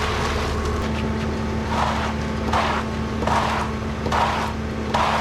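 Concrete mixer truck's diesel engine running steadily, with a regular scraping stroke repeating about every 0.8 s from about two seconds in, as wet concrete is worked.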